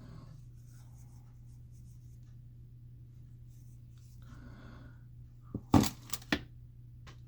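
Faint rubbing and scratching of fingertips working eyeshadow, then a quick run of about four sharp clicks or taps a little over five seconds in, over a steady low hum.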